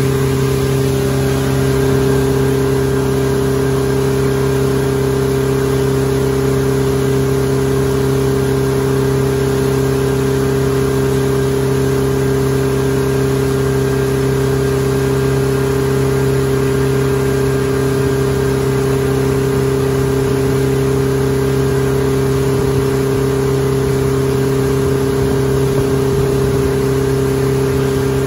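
Towing motorboat's engine running steadily at cruising speed: a constant, unchanging drone over a steady rush of wake water and wind.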